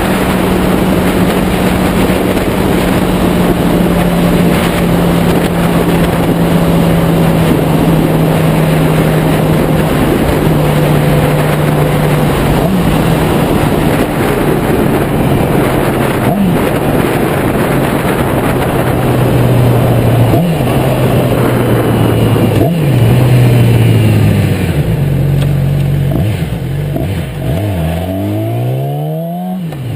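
Heavy wind noise buffeting the tank-mounted microphone over a Yamaha YZF-R6's inline-four engine, its note falling slowly as the bike slows, with a few short rev blips. Near the end the wind dies away and the engine revs up and down several times at low speed.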